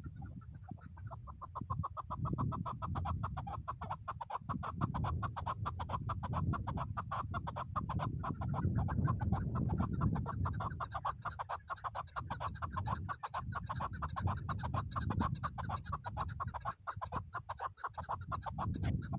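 Chukar partridges calling: a long, fast run of clucking 'chuck' notes, repeated many times a second, starting about a second in, over a low rumble.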